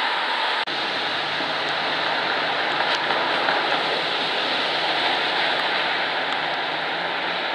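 Swollen Snoqualmie River running fast near flood stage: a steady rush of water, broken once by a short dip less than a second in.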